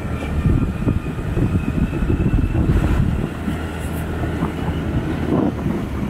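Motor vehicle on the move: a steady running rumble with wind buffeting the microphone, and a faint steady whine above it.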